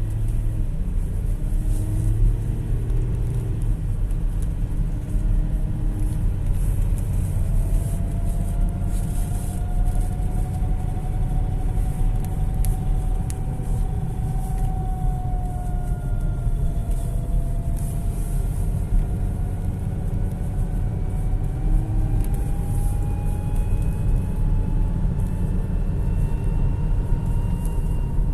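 Volkswagen Touareg 3.0 on the move with a cold engine: a steady low rumble with a thin whistle over it that slowly rises and falls in pitch, and a fainter higher whistle alongside. The whistle is a fault that shows up while the engine is cold.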